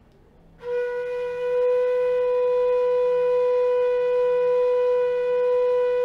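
G natural bass bamboo flute (bansuri) holding the note Ga, the third of its scale, as one long steady note that starts about half a second in. The note is blown for a tuning check.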